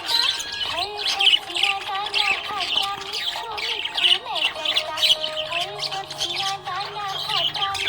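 Budgerigar chattering without pause: a fast run of high chirps over lower, wavering warbled notes.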